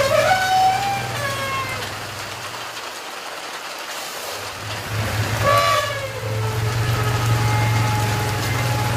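Heavy rain pouring onto a muddy yard and onto elephants' backs. Over it, high whistle-like tones glide up at the start and slide down about halfway through, then hold steady near the end.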